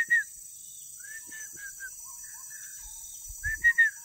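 A bird calling in bursts of four or five short, clear whistled notes, repeated three times, with a few lower notes in between.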